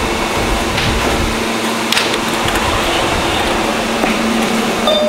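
An R160-series New York City subway car standing at a platform with its air-conditioning and auxiliary equipment running: a steady hum and hiss, with a couple of faint clicks.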